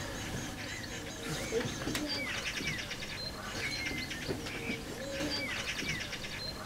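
Eurasian magpies chattering at their nest: a harsh, rapid rattle in three bursts about two seconds apart. Short falling whistles and low notes from other birds sound in between.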